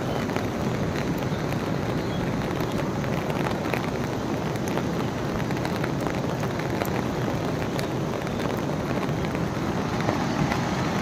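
Steady rain falling, with scattered drops ticking on nearby surfaces.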